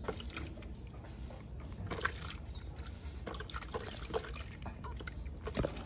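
Water trickling, with irregular small splashes and drips over a low steady background noise.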